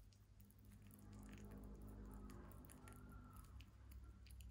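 Mini lop rabbit chewing and licking banana: faint, irregular wet clicks and smacks of its mouth on the soft fruit, over a low background hum.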